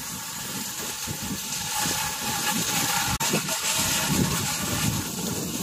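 Cross-country skis sliding over wet snow: a steady hiss with irregular low rumbling underneath.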